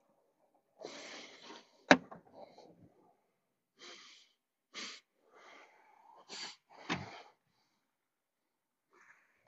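Scattered rustles, knocks and clatter of someone rummaging through things, with two sharp clicks, one about two seconds in and one about seven seconds in.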